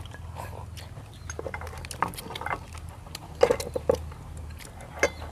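Eating sounds at a meal: scattered small clicks of chopsticks against porcelain bowls and soup being sipped from a bowl, over a low steady background hum.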